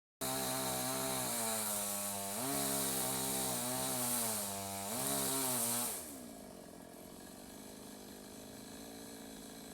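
Chainsaw running at high revs, its pitch rising twice. About six seconds in it drops back to a lower, quieter idle, then stops at the end.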